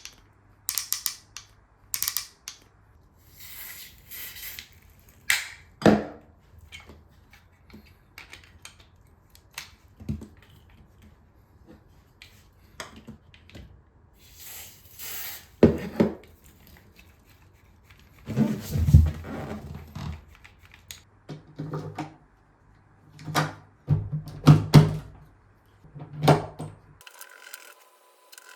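Interior door lever handle and latch mechanism being worked, clicking and clunking again and again. Several short hisses of silicone spray are applied to the mechanism to cure its noise.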